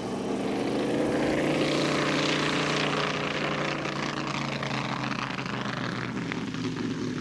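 BD-4 single-engine propeller light aircraft flying low past, its engine and propeller swelling to a peak about two to three seconds in and then easing, the pitch dipping slightly as it goes by.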